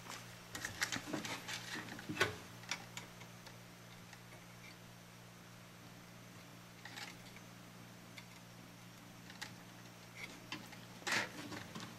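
Faint scattered clicks and taps of a soldering iron and capacitor leads being handled against a tube radio's metal chassis, most of them in the first few seconds, with a louder brief rustle near the end, over a low steady hum.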